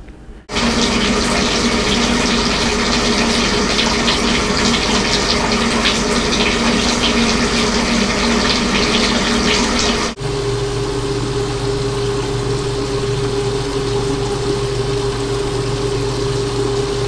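Bathtub faucet running, water pouring steadily into the tub. About ten seconds in it cuts sharply to a different, slightly quieter steady rushing sound with a low hum.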